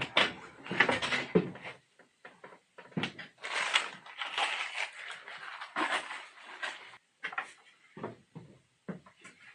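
Irregular knocks, clunks and rustling, as of objects being handled and moved about, in a small room.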